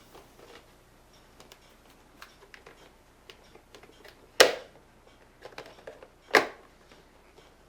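Plastic coffee-maker accessories being handled: scattered light clicks and rattles, with two sharper knocks about four and six seconds in as parts are set down.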